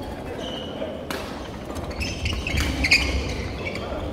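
Badminton doubles rally on a wooden court: racket strikes on the shuttlecock and shoes squeaking and stamping on the floor. It gets busier and louder from about halfway through.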